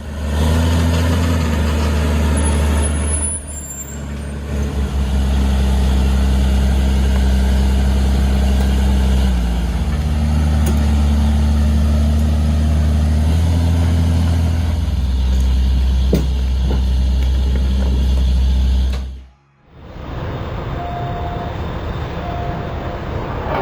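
Heavy machine's diesel engine running loudly and steadily under load, its pitch stepping up and down a few times. Near the end it cuts off sharply and a quieter engine sound follows.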